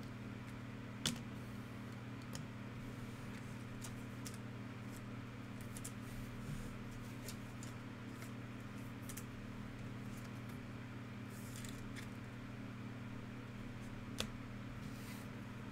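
Trading cards and a plastic card holder being handled: soft sliding and light ticks, with a sharp click about a second in and another near the end, over a steady low hum.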